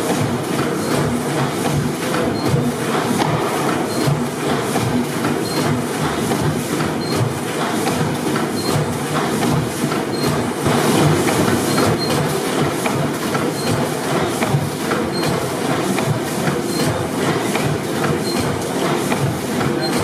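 600 HP Snow pipeline compressor engine, a large slow-speed four-stroke gas engine with double-acting cylinders, running steadily: a continuous mechanical clatter with an even, repeating beat from its crosshead and running gear.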